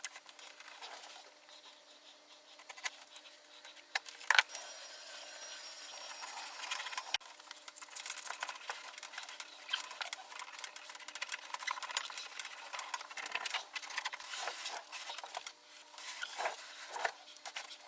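Hands rubbing, pressing and handling adhesive-backed leatherette on a wooden tool-chest cover, giving scattered soft rustling and rubbing noises. There are a couple of sharp clicks about four seconds in, then a few seconds of hiss that stops abruptly.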